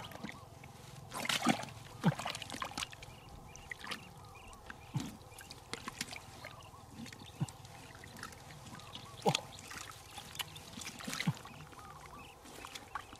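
A hand groping in a wet, muddy hole in the ground: scattered plops, gurgles and squelches of water and mud, a second or a few seconds apart.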